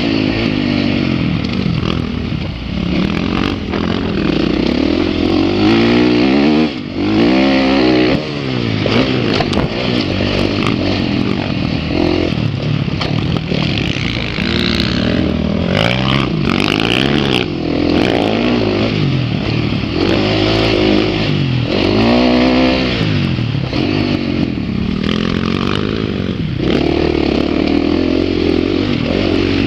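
Dirt bike engine heard from a camera mounted on the bike, revving hard and falling back again and again as the rider accelerates, shifts and rolls off through the corners of a motocross track. The throttle is briefly shut off about seven seconds in.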